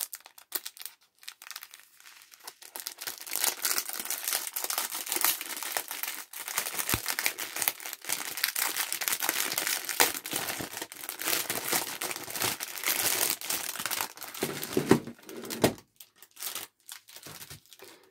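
Clear plastic packaging bag crinkling and crackling as hands handle it and work it open. It is sparse at first, dense and continuous through the middle, then breaks into a few sharper crackles near the end.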